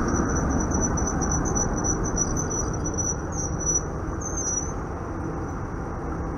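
1948 PCC streetcar rolling slowly past at close range, its wheels rumbling on the rails, the rumble slowly fading. A steady high-pitched whine runs above it.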